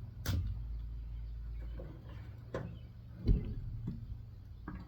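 A few separate knocks and clanks of metal parts being worked on while a transformer is broken down for scrap, the heaviest and deepest a little past three seconds in. A low steady hum runs under the first couple of seconds.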